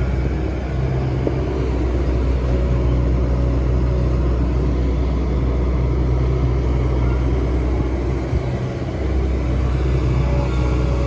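Hitachi Zaxis excavator's diesel engine running steadily under working load, with a short dip in level about eight and a half seconds in.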